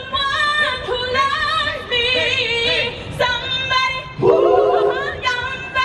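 An a cappella vocal group singing without instruments, amplified through stage speakers: high female voices hold long, wavering notes, and lower voices come in about four seconds in.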